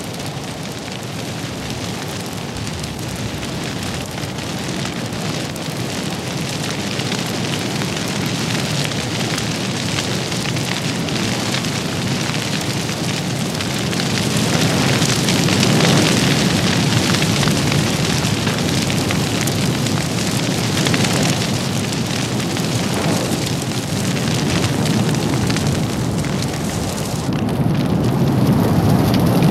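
Grass fire burning, a dense steady crackle and rush of flames that swells about halfway through and again near the end.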